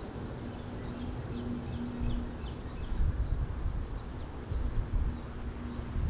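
Wind buffeting the microphone in uneven low gusts, with many faint, quick bird chirps and a faint low hum that comes and goes.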